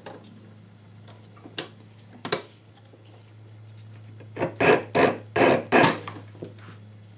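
Leather strap scraping and rubbing against a Craftool leather splitter as it is handled and fed in: a couple of faint clicks, then about five short, loud scraping strokes a little past halfway, over a steady low hum.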